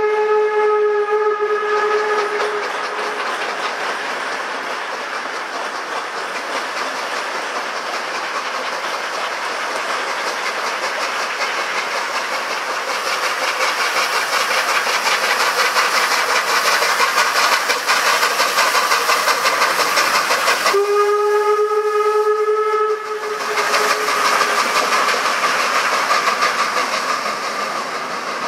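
Steam locomotive pulling away with a train: a steam whistle sounds and stops about two seconds in, then the engine's exhaust chuffs and steam hisses over rolling wheels. A second whistle blast sounds about two-thirds of the way through, lasting about two seconds, before the chuffing carries on.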